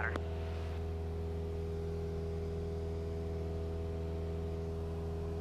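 Steady drone of a Cessna 172's engine and propeller in flight, holding a constant pitch.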